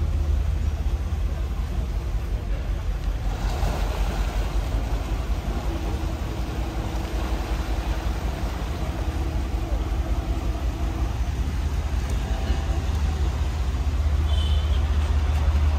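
Low steady rumble of the motor yacht's engines running while she docks stern-first, growing louder near the end.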